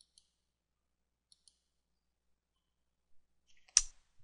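Computer mouse clicks: faint pairs of clicks in the first second and a half, then one sharper, louder click near the end.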